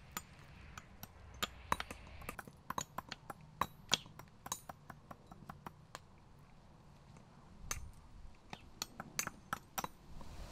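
Mosaic hammer cutting small white stone tesserae on a hardie set in a log block: a run of sharp clinks and chips, some with a short ring, several a second at first, thinning out in the middle, then a fresh cluster of strikes near the end.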